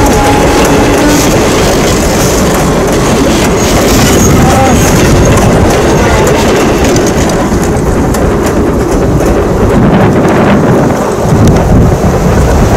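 Red passenger coaches of a steam excursion train rolling past close by, their wheels rumbling on the rails. A heavy rushing of wind on the microphone stays loud after the last car has passed, with a gust about 11 seconds in.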